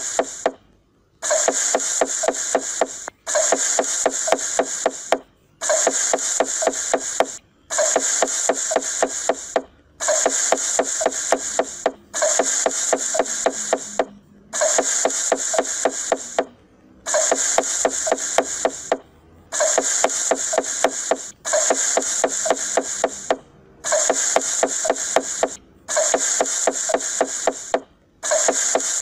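A knife chopping quickly on a wooden cutting board in bursts of about two seconds, broken by short pauses and repeating evenly.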